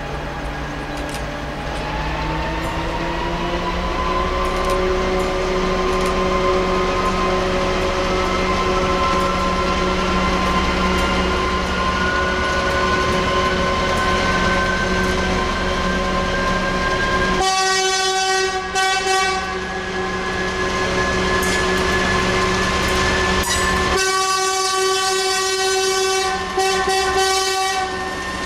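Class 232 'Ludmilla' diesel locomotive's Kolomna 5D49 V16 engine pulling away under load with a loaded tank train. Its note rises over the first few seconds, then holds steady under a whine that climbs slowly. Two horn blasts cut in: one of about two seconds just past the middle, and a longer one of about four seconds near the end.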